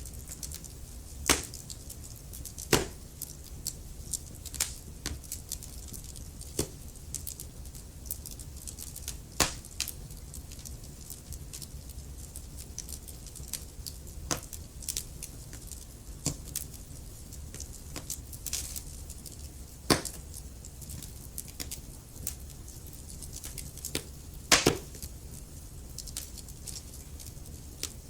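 Wood fire crackling in a fireplace: irregular sharp pops and snaps, a few of them much louder, over a steady low rumble.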